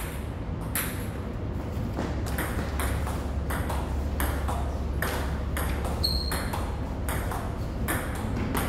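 Table tennis ball clicking back and forth off paddles and the table in a long rally, a hit or bounce every third of a second or so. A steady low hum runs underneath, and there is a brief high squeak about six seconds in.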